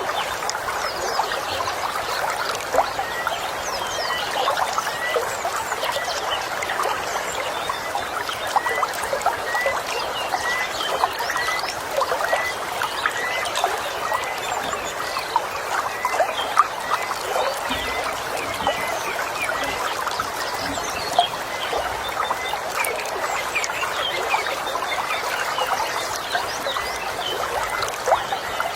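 Stream water running and trickling over stones, with birds calling; one short chirp repeats about three times every two seconds through much of it.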